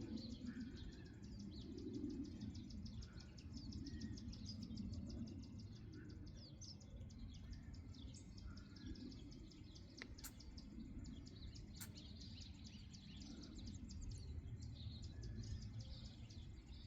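Rapid, high-pitched chirping of birds outdoors, with a low rumble swelling and fading underneath. Two short, sharp clicks stand out about ten and twelve seconds in.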